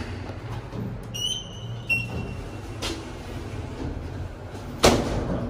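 Lift doors sliding shut over a low mechanical rumble, ending in a sharp thud as the panels meet near the end. Two short electronic beeps sound about one and two seconds in.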